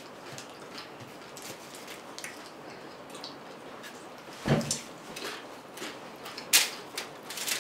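Eating sounds: crunchy food bitten and chewed close to the microphone. Faint clicks, a soft thump about halfway, then several sharp crunches near the end.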